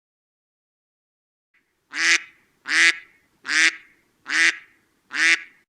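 Duck quacking five times in a steady, evenly spaced series, starting about two seconds in.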